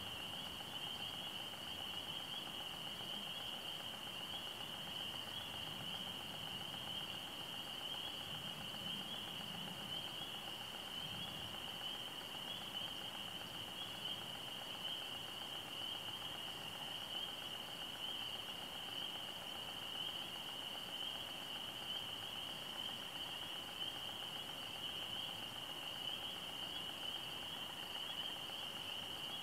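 A steady, high-pitched chorus of chirping insects that goes on without a break.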